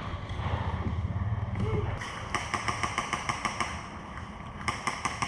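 Airsoft guns firing in rapid bursts of sharp clicks, several shots a second. One burst starts about two seconds in and another comes near the end, after a low rumble of wind and movement.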